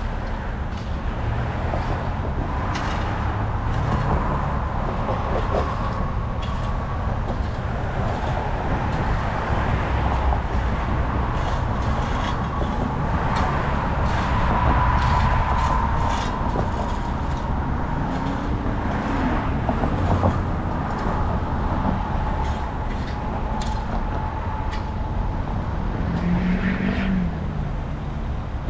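Steady motor-vehicle rumble and road noise, with a faint wavering whine and scattered clicks.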